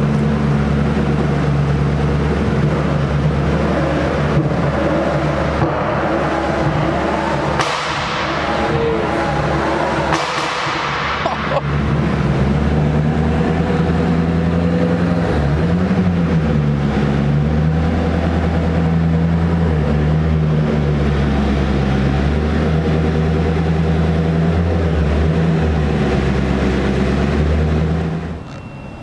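Koenigsegg Agera RS's twin-turbo V8 idling steadily, with one short blip of the throttle about halfway through.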